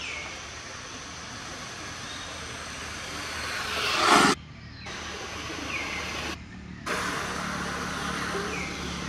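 Outdoor ambience: a steady background hiss with a faint low hum and several short high chirps that fall in pitch. About four seconds in, a noise swells to its loudest and then cuts off abruptly, and the sound drops out briefly twice.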